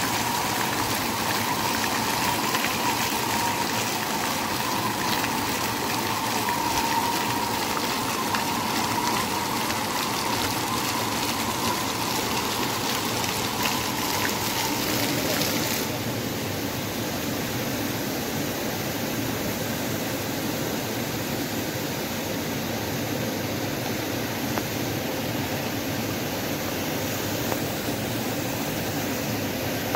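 Indoor fountain jets spraying and splashing into a shallow pool, a steady rush of water. About halfway through the splashing falls away, leaving a softer, duller steady rush.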